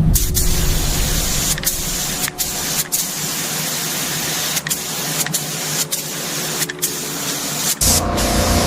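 Steady hissing spray, broken by a few brief dropouts. Near the end a low rumble comes in under it.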